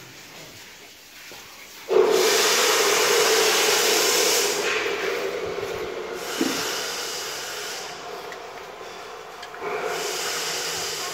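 A loud, steady hiss starts abruptly about two seconds in, fades down, then surges again near the end. There is one short knock partway through.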